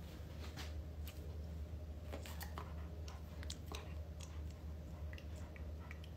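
A Rottweiler puppy nibbling and licking at a person's hand: scattered small clicks and mouth sounds over a steady low hum.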